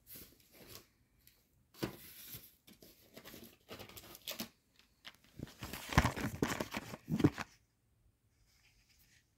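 Packaging rustling and crinkling as items are handled, in several short bursts with the longest and loudest about six to seven seconds in.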